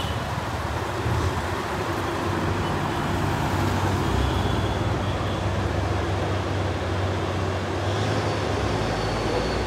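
Diesel engine of a loaded Hino trailer truck running with a steady low drone as it passes on a climb, with road noise around it.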